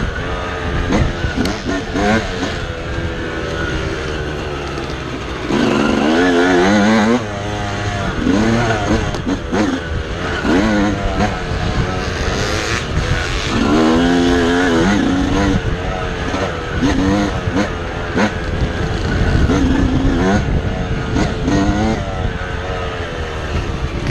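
Dirt bike engine revving up and backing off again and again, its pitch climbing and falling as the rider accelerates and shifts along a trail, over a constant rumble of wind and chassis noise on the bike-mounted camera.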